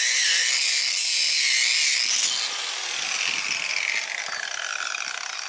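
Angle grinder with a cutoff disc cutting through the corroded copper end cap of a heat exchanger shell, a loud high whine with grinding hiss. After about two seconds it grows quieter and its pitch slowly drops as the cap comes free.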